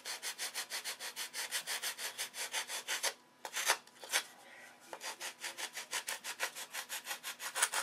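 Sandpaper on a sanding block rubbing a small wooden hinge by hand: quick, even back-and-forth strokes, about five a second. The strokes break off briefly a little after three seconds in, with a couple of single strokes, then pick up again. This is the rough shaping of the hinge.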